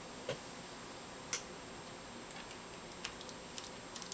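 A few sharp, irregular clicks of a magnetic screwdriver and a small screw against a laptop's plastic lid as the screw is set in place, coming closer together near the end.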